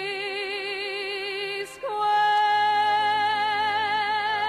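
1940 recording of a female ballad singer with orchestra: a long held note with vibrato, then about two seconds in the pitch moves to a new note and the music swells slightly louder as the song ends.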